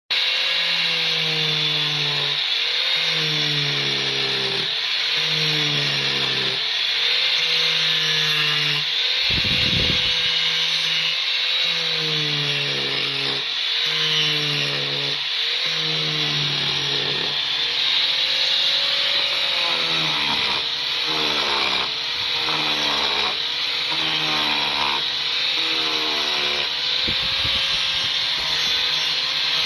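Angle grinder with a wood-stripping disc grinding into wood. The motor's pitch dips again and again, about every couple of seconds, as the disc is pressed in and lifted off, over a steady rasping hiss of wood being removed.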